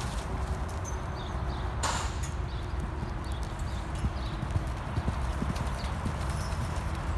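Hoofbeats of a loose horse cantering and then trotting on sand arena footing: dull thuds of hooves striking and scuffing the sand.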